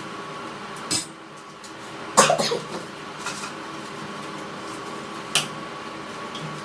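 A person coughing: one short cough about a second in, then a louder run of several coughs a little after two seconds, and a sharp click a little after five seconds, over a steady background hum.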